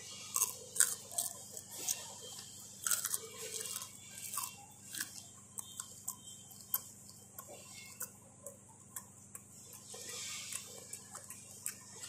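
A person chewing crunchy food, fried pork skin with green banana, close to the microphone: a string of crisp crunches and clicks, thickest in the first three seconds and then sparser.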